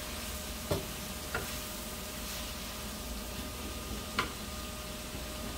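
Sliced onions sizzling in a nonstick frying pan while a wooden spatula stirs them, knocking against the pan three times.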